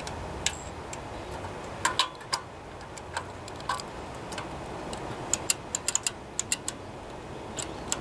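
Scattered light metallic clicks and ticks, irregular, with a quick run of them about five seconds in: the throttle linkage wire being worked into the throttle lever of a replacement carburetor for a Tecumseh small engine.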